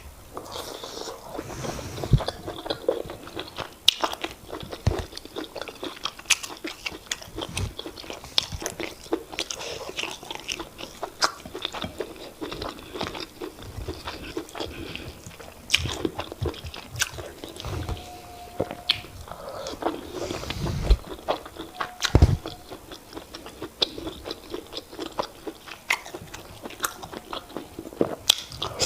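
Close-miked chewing and mouth sounds of a person eating semolina fufu with oha soup: many small wet clicks and smacks at an irregular pace.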